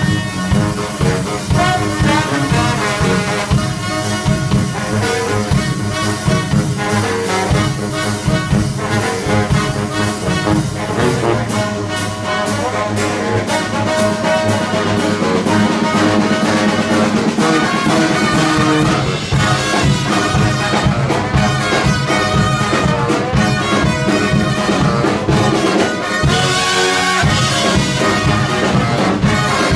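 Live brass band playing an up-tempo tune: trombone, baritone and tenor saxophones and sousaphone over a drum kit. The drum hits come through more sharply from about a third of the way in.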